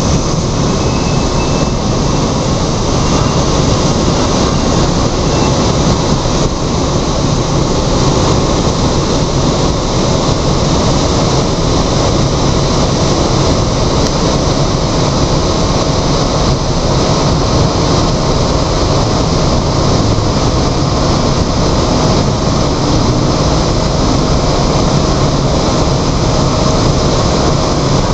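A-10 Thunderbolt II (Warthog) flying overhead, its twin General Electric TF34 turbofan engines heard from the ground as loud, steady jet noise with a thin steady whine in it.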